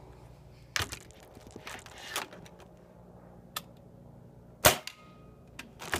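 Benjamin Summit .177 break-barrel air rifle being test-fired: several sharp cracks and clicks, the loudest and sharpest about three-quarters of the way in.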